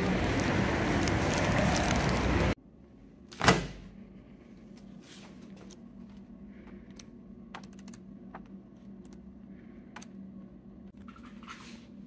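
Steady city street and traffic noise that cuts off suddenly. Then one loud thump, followed by soft rustles and light clicks of magazine pages being turned in a quiet room.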